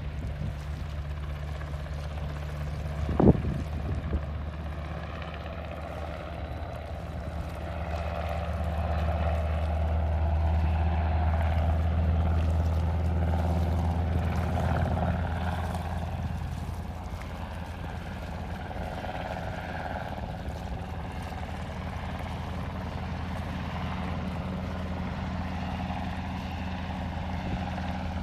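Distant military helicopter with a water bucket slung beneath it, its rotor and engine making a steady low drone that swells for several seconds near the middle and then eases off. A single sharp knock sounds about three seconds in.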